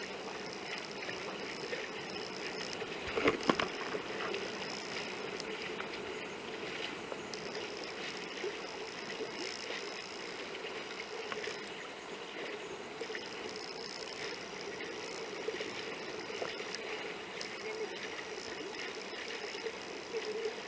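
Steady, muffled rush of water and wind as a Hobie Cat 16 catamaran sails, heard through a camera's waterproof case. A couple of sharp knocks about three seconds in.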